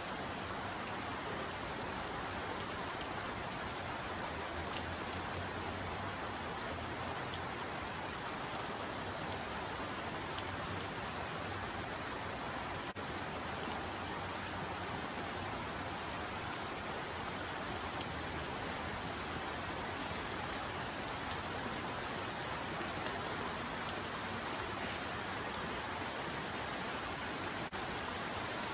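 Steady rain falling, an even hiss with a few sharper drop ticks here and there.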